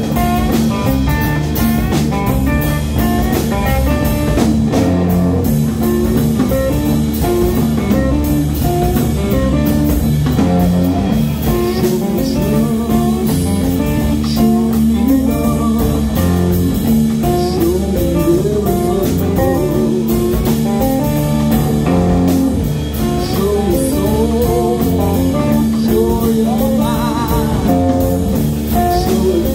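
Live band playing a blues number on electric guitars and a drum kit, loud and steady throughout, with some bent guitar notes near the end.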